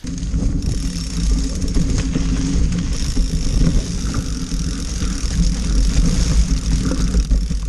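Mountain bike rolling fast over leaf-covered, muddy dirt singletrack, heard from a camera mounted low on the fork: the knobby front tyre crunching through leaves and dirt over a loud, continuous low rumble.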